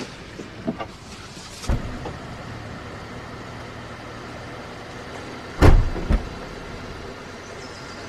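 An SUV's door shutting with a loud thump, followed half a second later by a lighter knock, over a steady low hum. A few small clicks and a duller knock come earlier, about a second and a half in.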